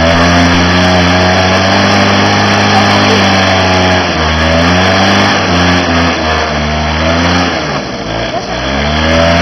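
Honda Lead 50 scooter's small two-stroke single-cylinder engine revving: held high for about four seconds, then dropping and blipped up and down, easing off near the eight-second mark and revved up again near the end.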